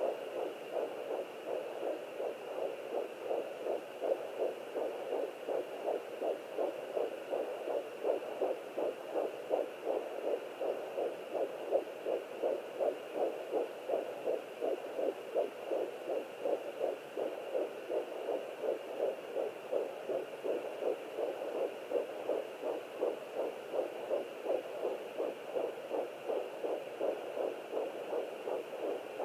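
Ultrasound doppler picking up a fast, even, whooshing pulse of about two beats a second. It is unclear whether this is a fetal heartbeat or the mother's own pulse.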